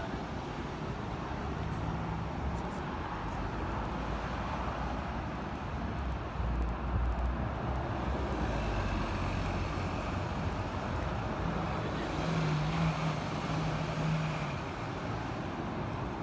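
Steady rumble of a Hong Kong double-decker tram and the road traffic around it, heard from the tram's upper deck. The rumble gets louder about six seconds in, and a deeper vehicle hum joins it from about twelve to fourteen seconds.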